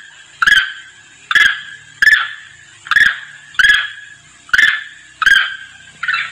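Macaque calls played as a lure, the call a monkey gives to bring its companions: short, sharp cries repeated evenly about once every 0.8 seconds, eight in all, over a faint steady high hiss.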